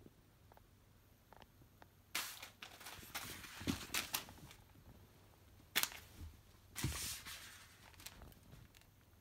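A cat scrambling across a wooden floor: scattered scuffs and soft thumps, with a sharp click a little under six seconds in.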